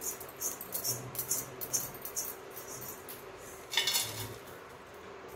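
Dry-roasted whole spices (fennel, cloves, black pepper, star anise, cinnamon) rattling and scraping in a kadhai as it is tipped. About four seconds in they pour out onto a steel plate with a brief rustling clatter.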